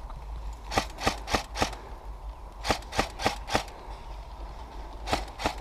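Airsoft guns firing single shots in three quick strings of three to five, about four shots a second, with sharp snapping reports.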